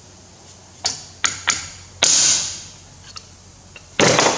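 Sharp metal clicks and a short scrape from a hand tool working on the splined drive shaft of a CAV rotary diesel injection pump, as a stuck steel washer is freed, with a louder clatter near the end.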